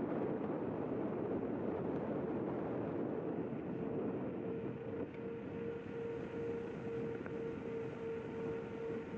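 Zero 10x electric scooter riding along a paved path, with a steady rush of wind and tyre noise. About four seconds in, a steady motor whine comes in and pulses evenly a few times a second.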